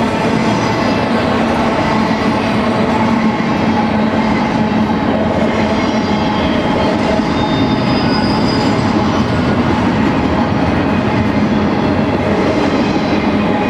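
Double-stack intermodal freight cars rolling past at steady speed: a continuous loud rumble and rattle of steel wheels on rail, with a few steady high tones running through it.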